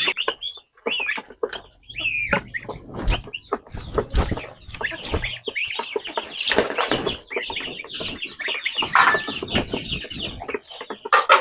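A flock of chickens clucking and calling over one another, with wings flapping and many short knocks and scuffles.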